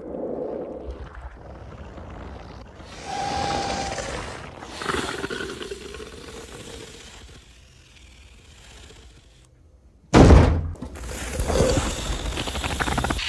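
Film soundtrack creature effects of a xenomorph: hissing swells, then a loud sudden hit about ten seconds in, followed by a man's shout and more hissing near the end.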